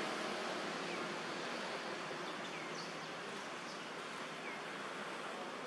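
Steady outdoor ambient noise with a few faint, short high chirps.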